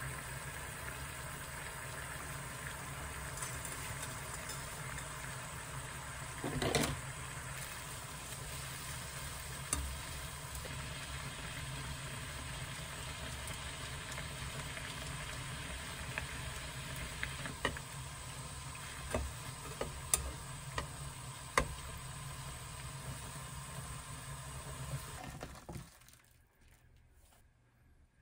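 A pan of water at a rolling boil on a gas stove, bubbling steadily while noodles are stirred in with chopsticks, with a few light knocks. The bubbling cuts off abruptly about two seconds before the end.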